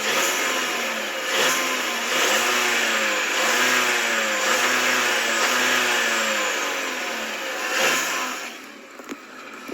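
Volkswagen Tiguan engine running with a metallic whine, its pitch rising and falling over and over, before it drops away near the end. The whine is new since the dealer replaced a pipe in the engine's breather system, and it is there even at tick over from cold.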